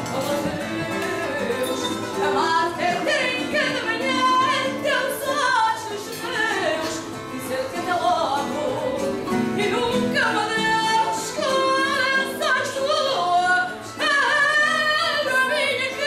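A woman sings fado live, holding long notes that waver in pitch. A Portuguese guitar and a classical guitar accompany her.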